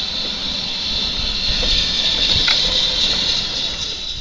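Steam locomotive letting off a steady, loud hiss of escaping steam, with a low rumble beneath; it cuts off suddenly near the end.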